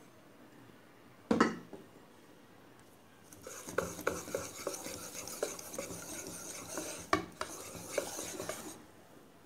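Metal wire whisk beating thin cake batter in a plastic bowl, a wet swishing with many quick clicks of the wires against the bowl, running for about five seconds and stopping near the end. A single sharp knock comes about a second in.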